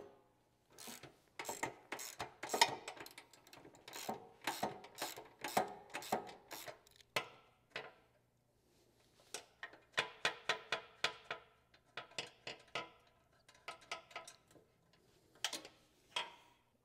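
Ratchet socket wrench clicking in quick runs of strokes, with short pauses between runs, as a nut is backed off a bolt held still with an Allen key.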